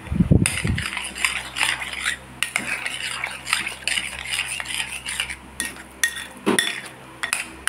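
A metal spoon stirring and mashing a wet mixture of crumbled tofu, chopped vegetables and raw egg in a bowl, scraping and clinking against the bowl, with a few sharper clinks near the end.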